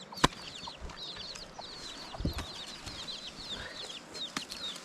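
Chicks peeping in a steady stream of many short, high chirps. Two sharp knocks stand out, one just after the start and one near the end.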